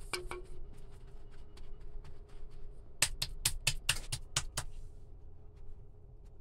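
Sharp handling clicks and taps during food prep: one click at the start, then a quick run of about eight taps a little after halfway, over a steady low hum.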